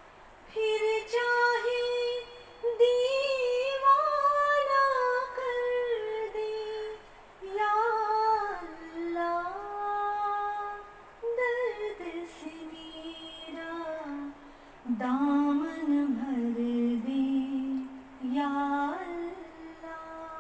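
A woman singing a slow melody into a microphone, holding long notes and sliding between them, in phrases with short breaks between.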